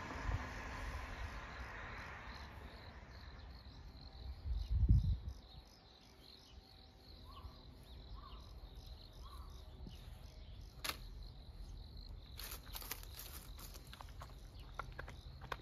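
Crickets chirping: a steady, high, pulsing trill. A broad rushing noise fades away over the first two seconds or so, there is a low thump about five seconds in, and a run of small sharp clicks comes near the end.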